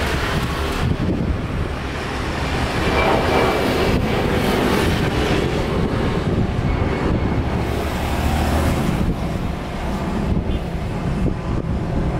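Airbus A320 jet airliner climbing out just after lift-off, its engines at take-off power giving loud, steady jet noise with a deep rumble underneath. Some wind buffets the microphone.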